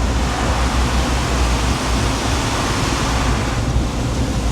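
Steady rush of an automatic car wash at work, heard from inside the Jeep's cabin, with a low rumble beneath.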